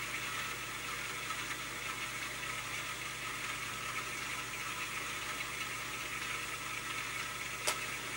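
Commodore 1571 floppy disk drive running its performance test, a steady whir of the spinning disk while the track writes and reads go through without errors. One short click near the end.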